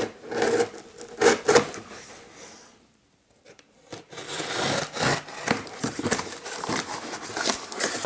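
Utility knife slitting packing tape on a cardboard box, with cardboard flaps scraping and rubbing in irregular scratchy strokes. There is a short break about three seconds in.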